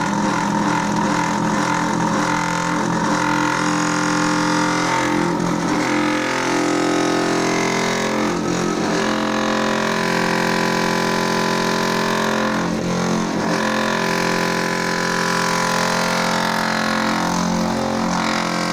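Four-block cinder-block machine's vibrator running steadily, shaking the mould to compact granite screenings under the pressure frame, with brief wavers in its hum every few seconds.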